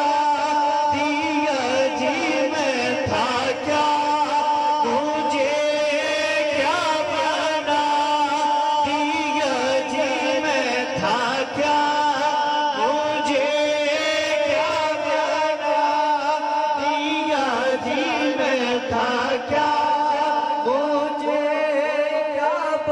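Men singing a Punjabi naat into microphones: a lead voice carries a wavering, ornamented melody while backing voices hold long notes in recurring phrases.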